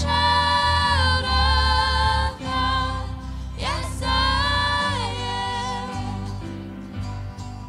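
A small vocal group singing a praise song live with instrumental accompaniment, holding long notes in two phrases with a sliding note between them.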